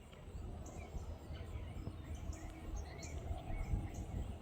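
Small birds chirping, many short calls scattered through, over a steady low rumble.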